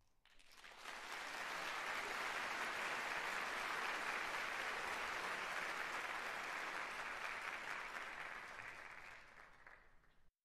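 Crowd applauding, swelling in within the first second, holding steady, then fading near the end and cutting off.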